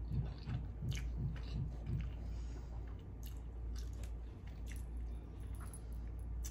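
A person chewing a mouthful of food with the mouth closed: soft, even chews about three a second for the first two seconds, then quieter chewing with small wet mouth clicks.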